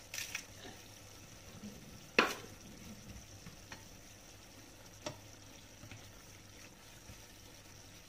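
A plastic ladle stirring pork, mushrooms and noodles in sauce in a frying pan, under a faint steady sizzle. It knocks sharply against the pan about two seconds in, with a few lighter taps and scrapes after.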